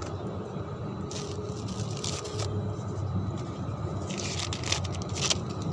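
Soil scraping under a hand and a thin plastic polybag crinkling, in short rustles with a denser run of crinkling near the end, over a steady low rumble.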